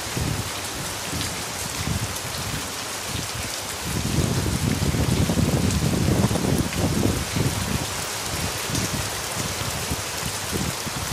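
Steady rain falling, an even hiss, with a louder low rumble from about four to seven seconds in.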